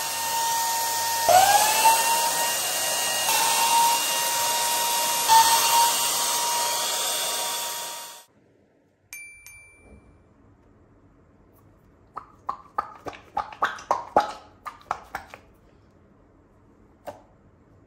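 Electric balloon pump running with a steady whine, its motor note dipping and climbing back a few times, then cutting off about eight seconds in. After it come a short beep and a run of clicks and squeaks as the rubber toy is handled.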